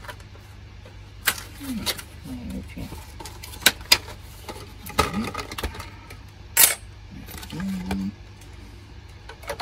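Small metal computer parts being handled: the thin sheet-metal back plate of a PCIe network card clicking and clinking. There are several sharp separate clicks and a brief metallic ringing scrape about two-thirds of the way through.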